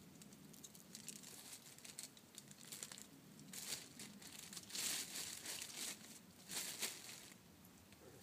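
Plastic packaging crinkling and rustling as it is handled, in irregular bursts, the loudest about five and seven seconds in.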